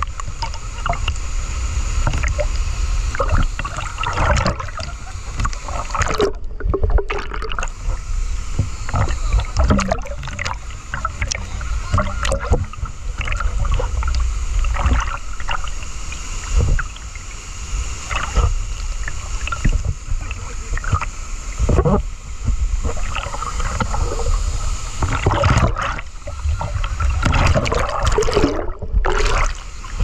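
River water rushing and splashing close to the microphone, with a heavy low rumble and scattered knocks and clicks throughout.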